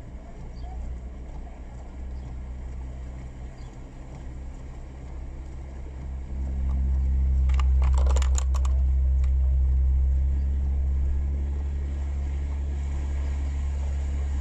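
Engine of a vehicle, heard from inside its cabin, running with a steady low drone. It grows louder about six seconds in as it takes up load pushing a stalled car through floodwater. A brief clatter of clicks comes around eight seconds in.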